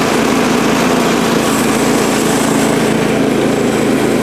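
Kohler Command Pro 14 hp single-cylinder engine on a Woodland Mills HM130MAX sawmill running steadily.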